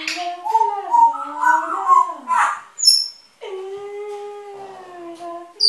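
Pet birds chattering: long wavering calls that slide up and down in pitch, somewhat like a meow or a howl, with a short high whistle about halfway through.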